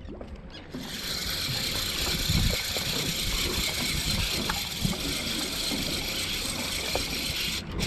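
Mercury outboard motor running at low trolling speed, with a steady hiss over it; the sound cuts off sharply near the end.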